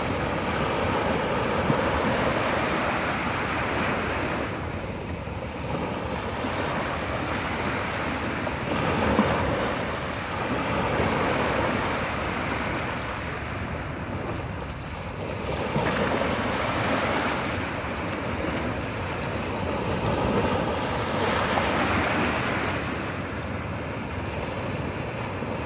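Sea waves breaking and washing ashore, the surf rising and falling every few seconds.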